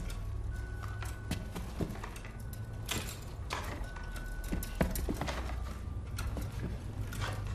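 Irregular hollow knocks and clicks over a steady low hum, with a faint high tone coming and going twice.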